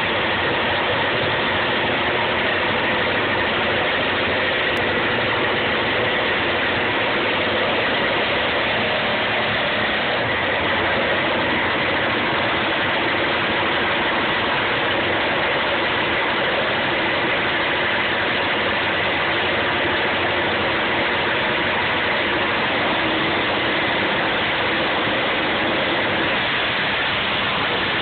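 Two drag racing motorcycles' engines running on the start line: a loud, steady engine noise that hardly changes.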